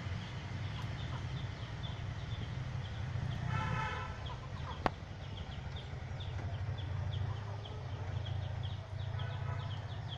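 Outdoor background: a steady low hum under rapid, short high chirps, with a brief pitched animal call about three and a half seconds in and a single sharp click about five seconds in.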